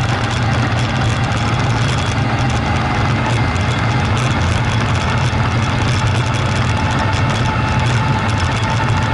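Quad bike (ATV) engine running steadily under way, heard from an action camera mounted on the front of the machine, with a steady engine pitch that rises slightly near the end.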